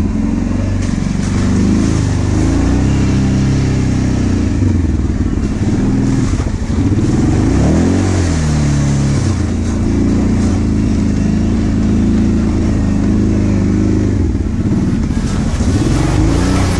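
ATV engine running under load, its pitch rising and falling several times as the throttle is opened and eased off.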